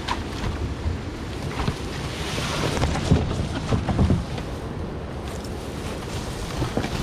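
River water splashing and sloshing around a kayak, with irregular splashes, and wind rumbling on the microphone.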